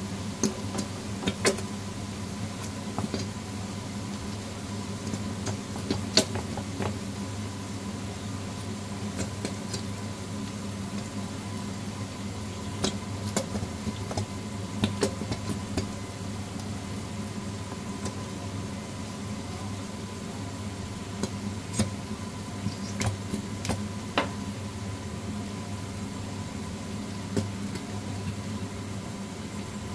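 A metal spoon clicking and knocking at irregular intervals as chili sauce is dug out of a nearly empty bottle and tapped into a pan, over a steady low hum.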